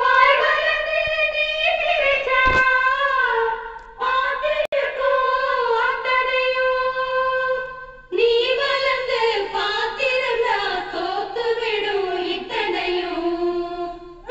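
A song with a high singing voice played through a 12-volt stereo amplifier built on an LA4440 chip, fed from its MP3/FM player module as an audio test. The song breaks off briefly about four and eight seconds in.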